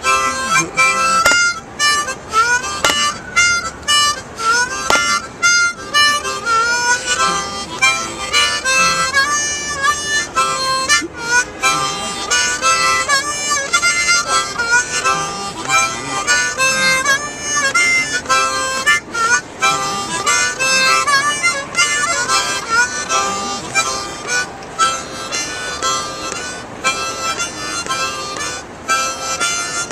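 Blues harmonica played solo, a continuous run of wailing notes with bends and short breaks between phrases.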